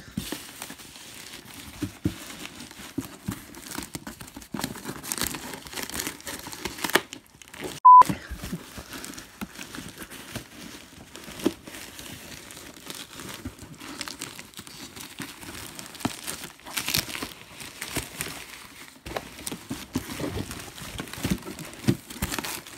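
A black plastic bag crinkling and cardboard rubbing and scraping as a shipping box is worked out of its plastic wrapping, with scattered small knocks. About eight seconds in there is one short, loud steady beep.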